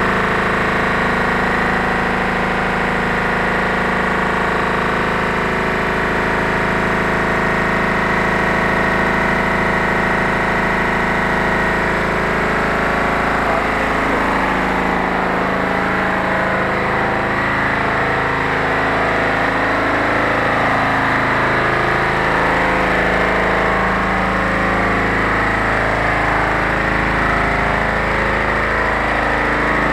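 Tricot warp-knitting machine running at speed: a loud, continuous mechanical din made of several steady tones. Roughly halfway through, the tones become unsteady and shift about.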